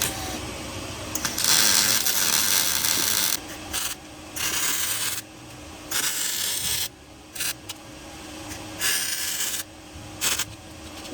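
Welding arc crackling in a series of short bursts with pauses between, the longest about two seconds: exhaust pipe being stitch-welded.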